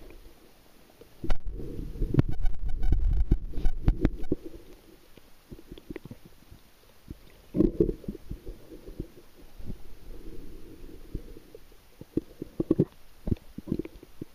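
Muffled underwater rumbling with dull knocks, picked up by a camera inside its waterproof housing as it moves through the water: mostly low, a loud stretch of a few seconds just after the start and scattered sharper knocks later.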